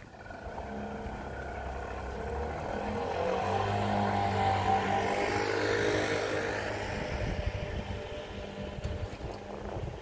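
A motor vehicle drives past, its engine hum and road noise rising to a peak about five seconds in and then fading away.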